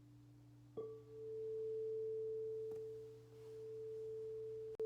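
A sound-bath instrument struck about a second in, ringing with a pure, steady single tone that swells and fades slowly; it is struck again just before the end. A fainter, lower steady tone lingers underneath.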